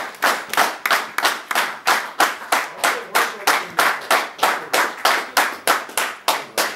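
A small group clapping together in a steady rhythm, about four claps a second: applause for a prize being presented.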